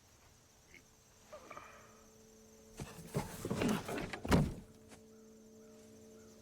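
A cluster of heavy thunks and clattering knocks about three seconds in, lasting under two seconds, followed by a low sustained musical drone that begins near the end.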